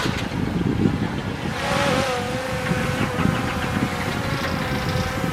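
Diesel engine of heavy earthmoving machinery running, with a steady whine above the rumble. There is a brief hiss about two seconds in.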